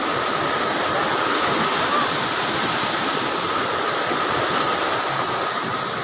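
Waterfall running, a steady, even rush of falling water.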